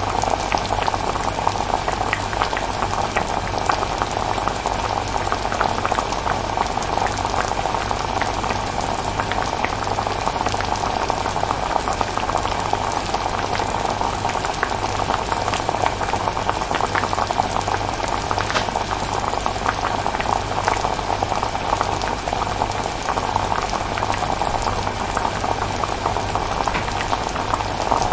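Chilli bubbling steadily as it cooks, many small pops over a steady low hum.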